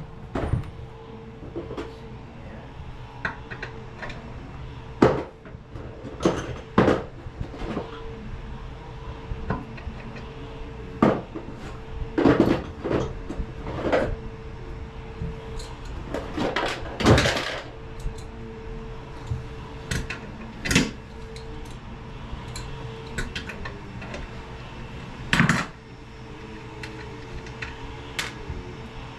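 Irregular knocks and clatter of hard objects being handled, a dozen or so scattered strokes with one longer clatter partway through, over a steady faint hum.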